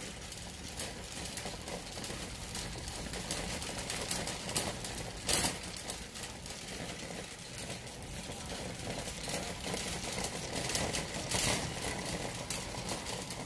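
Wire shopping cart rolling over a concrete store floor: a steady rattling rumble of wheels and basket full of small clicks, with two sharper clacks about five and eleven seconds in.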